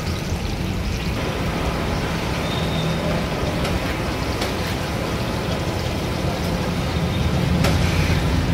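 Batter-coated chillies and vegetable fritters deep-frying in a large iron kadai of hot oil, a steady sizzle over a low rumble. A metal spatula knocks against the pan a couple of times as the fritters are turned.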